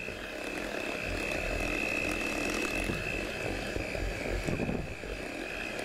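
Electric hand mixer running steadily on low speed, its beaters churning brownie batter in a glass bowl: a constant high motor whine over a rough churning noise.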